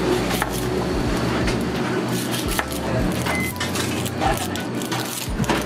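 Knife clicking on a cutting board as a red onion is halved and peeled, over background music and indistinct voices.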